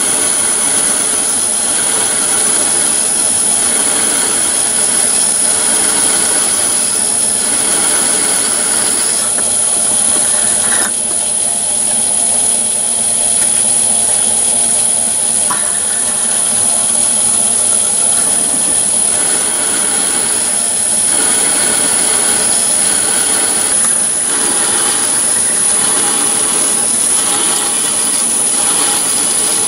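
Myford ML7 lathe running at about 450 rpm while a twist drill in the tailstock bores into a hard steel bar. It makes a steady machine hum with a constant high whine, and the sound shifts abruptly a few times.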